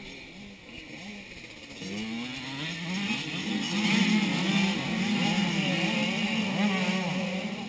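A pack of motocross dirt bikes revving hard as they approach and pass. Several engines rise and fall in pitch together, building from about two seconds in and loudest around four seconds in.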